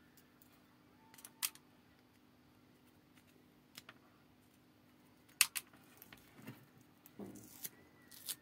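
Handling noise from a small tape-wrapped power supply module and its wires being held and pressed against a circuit board: scattered sharp clicks and taps, loudest about five and a half seconds in and bunched near the end, over a faint steady hum.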